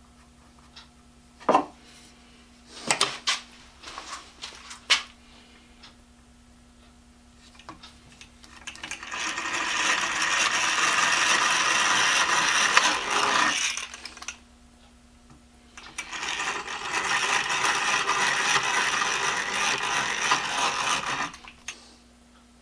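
Workshop tool noise: a few sharp knocks in the first five seconds, then two runs of steady rasping noise, each about five seconds long.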